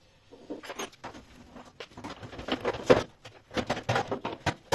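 Irregular clicks, rattles and knocks of plastic and sheet-metal parts being worked loose inside a heat-pump tumble dryer as its condensate water tray is pulled out. A sharper knock comes about three seconds in.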